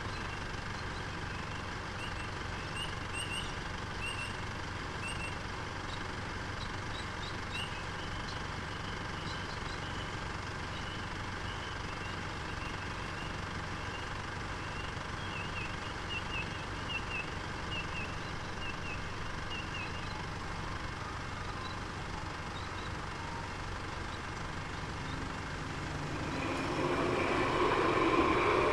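Electronic level crossing bells ringing continuously at a tram crossing, over the hum of queued road traffic. Near the end a tram approaches and the sound grows louder.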